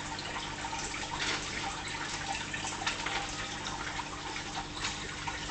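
Fish-tank water bubbling and trickling steadily with small drips, over a steady low hum from the tank's pump.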